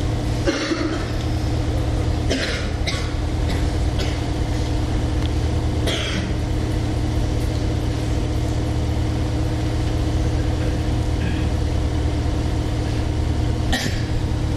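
A steady low hum made of several even tones, with a few brief noises scattered through it: one just after the start, one about two and a half seconds in, one about six seconds in and one near the end.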